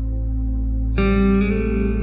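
Background music: a steady ambient pad, with echoing electric guitar notes coming in about a second in.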